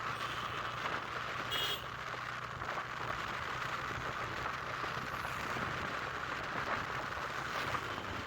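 Steady riding noise on a Bajaj Pulsar N160 motorcycle: even wind and road rush on the microphone, with a low steady engine hum beneath.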